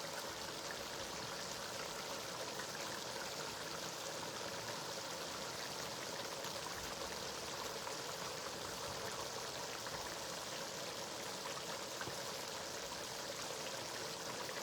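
Steady hiss of a pot of stew cooking on the stove, even throughout with no separate events.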